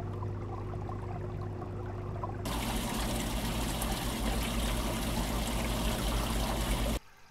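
Air bubbling through water from an aquarium air line, over a low steady hum. About two and a half seconds in it becomes a much louder hissing rush of bubbling water, which cuts off abruptly near the end.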